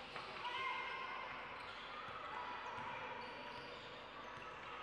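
Basketball game play: the ball bouncing on a hardwood court, with short high squeaks of sneakers, over the steady background noise of the hall.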